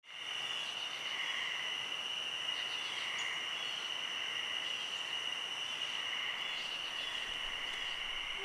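Night insects trilling steadily at a high pitch, with small clusters of chirps every second or two; it fades in at the very start.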